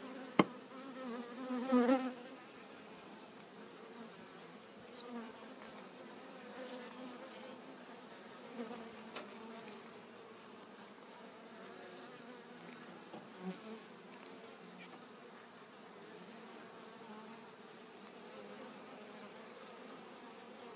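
Many honeybees buzzing steadily around an open bee package and hive. A louder, wavering buzz comes about two seconds in, and there is one sharp click near the start.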